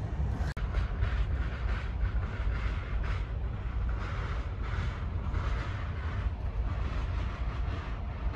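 Güney Kurtalan Express passenger train running: a steady low rumble with irregular surges of noise, and a brief dropout about half a second in.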